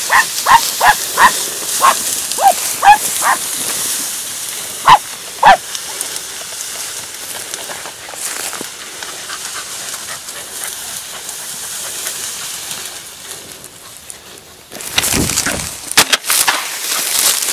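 Podenco Andaluz hunting dogs yelping in a quick series of short, high cries, with two louder yelps about five seconds in. A steady high hiss follows, and near the end a loud burst of rustling and crackling noise.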